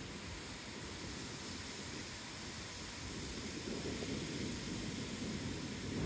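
Ocean surf breaking on a sandy beach: a steady wash of waves that swells louder from about halfway through.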